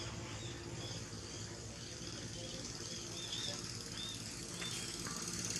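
A run of short, high chirps repeating every half second or so over a steady low background hum.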